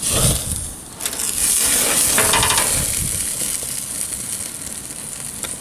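Marinated duck pieces sizzling on a charcoal grill's wire grate: a steady, dense sizzle that dips briefly just before a second in, then picks up again.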